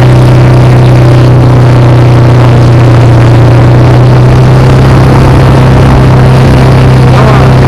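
Motor vehicle engine running loud and steady at an even speed, with no rise or fall in pitch.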